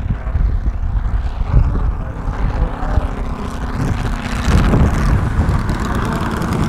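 Homemade 220 cc V4 four-stroke model aircraft engine running with its three-blade propeller, a steady hum under heavy wind noise on the microphone. About four seconds in it turns louder and broader as the plane comes in low and close to land.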